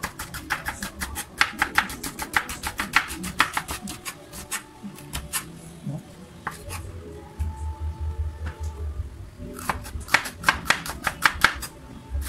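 Kitchen knife chopping bitter melon on a wooden cutting board: quick sharp knocks of the blade through the vegetable onto the board, several a second. They come in fast runs at the start and near the end, with a slower, sparser stretch in the middle.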